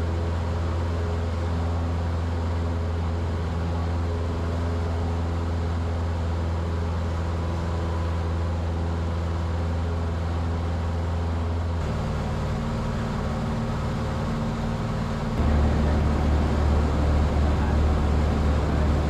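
Cessna 150's Continental O-200 four-cylinder engine and propeller running steadily at high power, heard from inside the cockpit during a touch-and-go climb-out. The engine tone shifts abruptly about twelve seconds in and gets louder about three seconds later.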